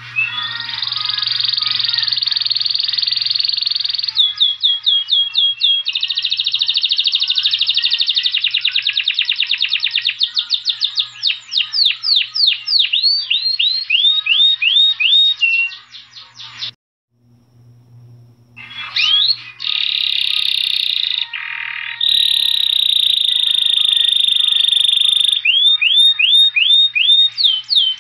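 Saffron finch singing: long, fast buzzy trills alternating with runs of sharp falling notes, broken by a brief pause a little past halfway.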